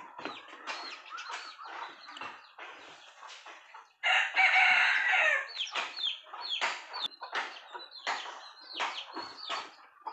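Chickens clucking in quick short calls. A loud rooster crow of about a second and a half starts suddenly about four seconds in and is the loudest sound.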